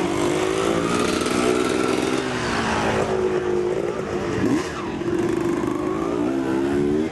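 A motorcycle engine running steadily, its pitch drifting slightly up and down.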